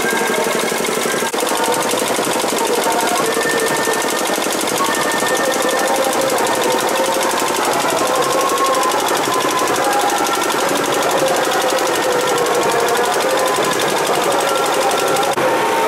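Fast, unbroken beating of festival percussion, with voices calling over it.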